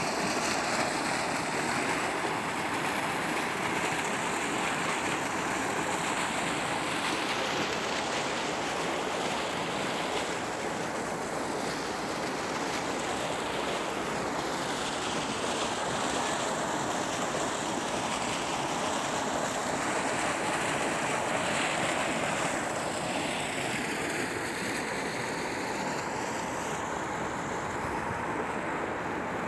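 Steady rushing water, an even hiss-like roar with slow shifts in its upper range and no distinct breaks or impacts.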